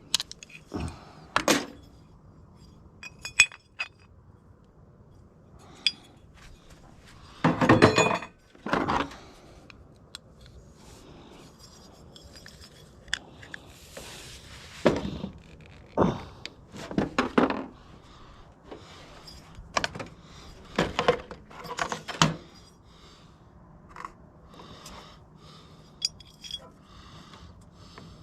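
Small metal parts clinking and clattering as a water heater is taken apart for scrap: scattered knocks and clinks, with a louder burst of clatter about eight seconds in and a short scrape in the middle.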